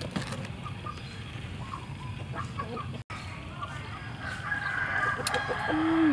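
Chickens in the background, with a rooster crowing in the last two seconds, growing louder before its call trails off and drops in pitch.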